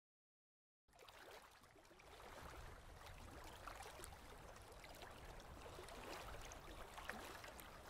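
Near silence: about a second of dead silence, then a very faint ambience of lake water lapping.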